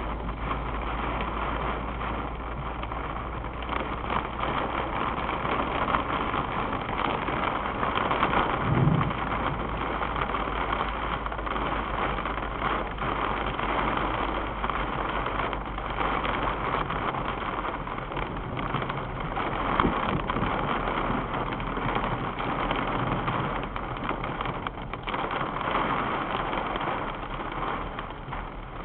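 Heavy rain drumming on a moving car's roof and windshield, heard inside the cabin over steady engine and road hum, with a couple of brief louder thumps about nine and twenty seconds in.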